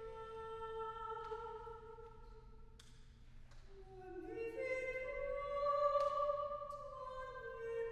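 Women's choir singing slow, sustained chords in several parts. It softens a couple of seconds in, then swells with new entries to its loudest about six seconds in, and eases off again.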